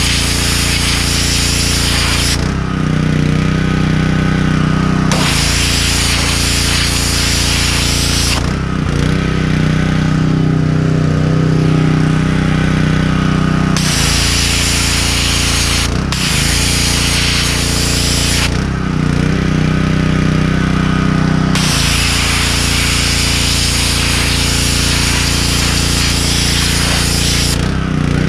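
Gas pressure washer with a Subaru engine running steadily while its 40-degree tip sprays water onto a shad on a wooden board, blasting off the scales. The hiss of the jet comes and goes in about four long spells as the trigger is squeezed and released, and the engine note shifts between them.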